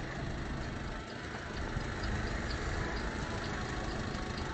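Fishing boat's engine idling, a steady low rumble with an even hiss over it.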